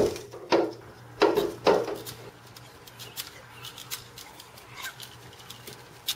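Hands thumping against a window pane: four loud thumps in the first two seconds, then faint scattered clicks.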